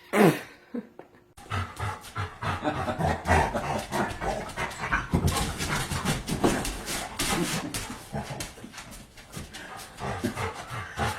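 A dog panting hard, rapid and irregular, opening with a brief loud sound that slides down in pitch.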